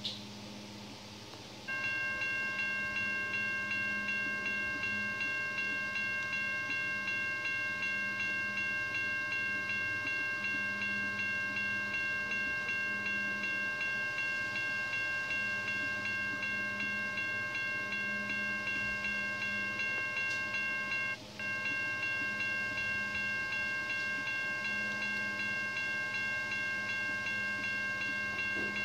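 Toy railroad crossing signal's electronic bell starting up a couple of seconds in and dinging rapidly and steadily as its red lights flash. It breaks off briefly about two-thirds of the way through, then resumes.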